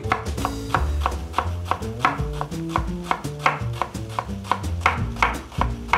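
Chef's knife rapidly chopping onion on a wooden cutting board, about five quick knocks a second, mincing it fine.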